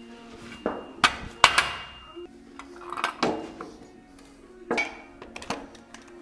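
Steel parts clanking against each other and the concrete floor as castor brackets are fitted under a lathe stand: about six sharp metallic clanks with short ringing, the loudest about a second and a half in. Background music plays underneath.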